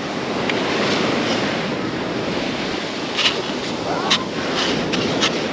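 Ocean surf breaking and washing up the beach, with wind buffeting the microphone. A few short sharp clicks come through about three to five seconds in.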